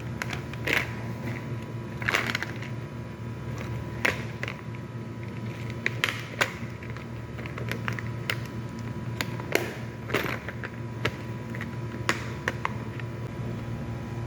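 Irregular clicks and short scrapes of hands and tools working on a laptop's plastic case, over a steady low hum.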